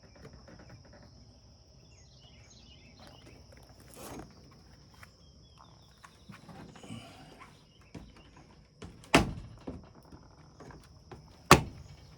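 Steady high trill of crickets, with scattered small clicks and two loud sharp knocks about two seconds apart near the end.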